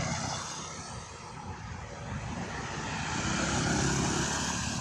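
A motor's steady drone with a low rumble, swelling louder toward a peak about four seconds in.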